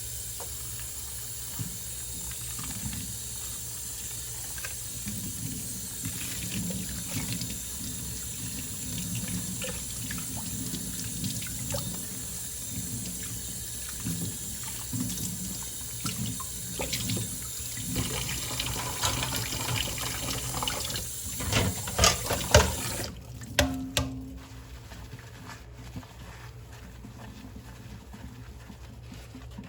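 Kitchen tap running into a sink while dishes are washed by hand, with scattered knocks of dishes and a few loud clinks of crockery. The running water shuts off about three quarters of the way through.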